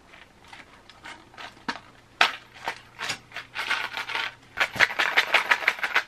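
Scattered clicks and rustles of small parts and packaging being handled. From near the end, a small box of loose screws is shaken, giving a quick rattle of about eight clicks a second.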